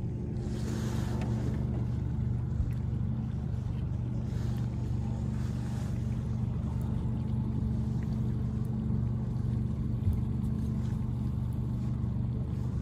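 Boat motor running steadily at slow trolling speed, with water and wind noise around it. Two brief knocks sound over it.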